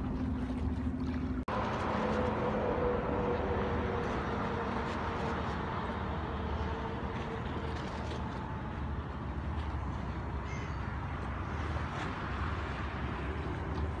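Waterfront ambience: a steady wash of wind and choppy water with a small boat's engine running, and a few bird calls. The sound cuts out for an instant about a second and a half in.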